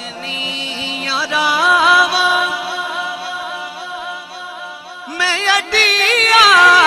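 A man singing a Sufi kaafi into a microphone, drawing out long notes with wavering, ornamented runs over a steady held tone. A new, louder phrase begins about five seconds in.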